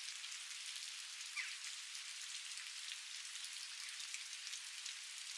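Steady outdoor rain: a constant hiss of falling rain with many small drop ticks on surfaces. About a second and a half in, a brief falling tone sounds once.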